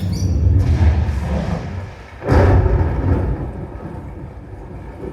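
A deep, loud rumble that starts suddenly, eases off, then a second sudden crack about two seconds in that rolls away into a rumble.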